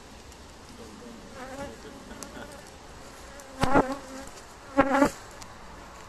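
Honeybees buzzing around a brood frame lifted from an open hive, a steady hum. Twice, about three and a half and five seconds in, a bee buzzes loudly past close by.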